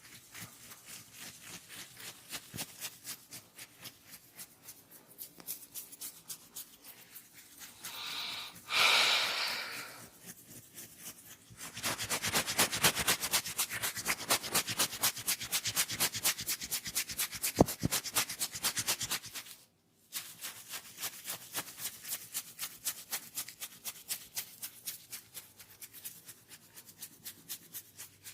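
Hands rubbing quickly over skin and hair in a head and neck massage, several short strokes a second. It starts soft, with a louder swish about a third of the way in, then turns louder and denser for several seconds, broken by one sharp click, before easing back to softer strokes.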